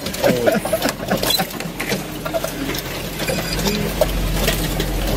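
Toyota Tacoma pickup crawling over a rough forest trail: irregular clicks, rattles and short squeaks from the truck's body and cab, over a low engine rumble that swells in the second half.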